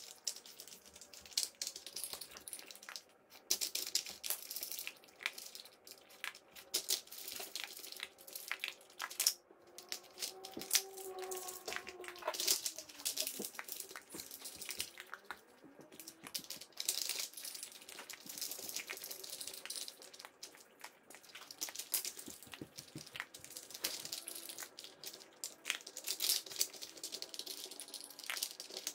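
A dog working a plastic Dog Brick puzzle feeder for its dry food: rapid, irregular clicking and rattling of the plastic lids, sliding blocks and kibble as its nose and paws push them about, sped up four times.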